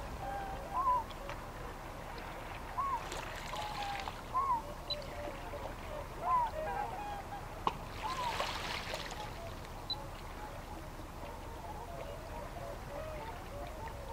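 Waterfowl calling: short arched honks every second or two, over water lapping, which swells louder twice.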